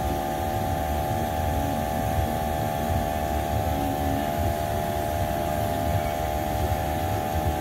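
A steady machine hum, several constant tones held at one pitch, over a low rumble that doesn't change.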